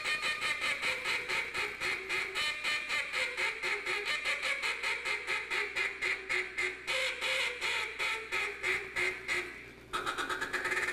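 Handheld duck call blown in a contest routine: a steady string of mallard-hen quacks, about five or six a second. After a short break near the end, a faster, closer-spaced run of notes begins.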